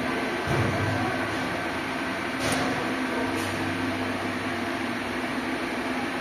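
Steady machine hum from a running motor or engine, with a low thud about half a second in and a few light clicks.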